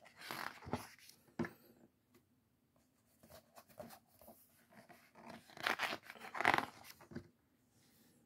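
Pages of a glossy photo book being turned by hand, with paper swishing and rustling. There is a burst near the start and a louder one from about five and a half to seven seconds in.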